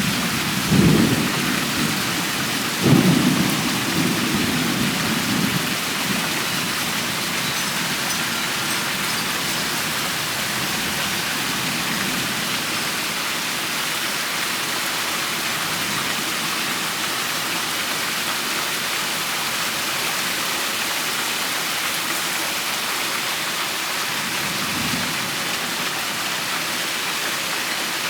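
Steady rain falling, with two claps of thunder about a second and three seconds in, the second rumbling on for a few seconds, and a faint roll of thunder near the end.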